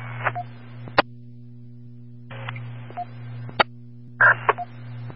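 Police scanner radio with short unspoken key-ups: three brief patches of static hiss, each cut off by a sharp squelch-tail click, over a steady electrical hum.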